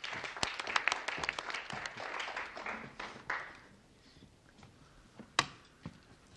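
Hand clapping from a small group, dying away after about three and a half seconds. A single sharp knock about five and a half seconds in.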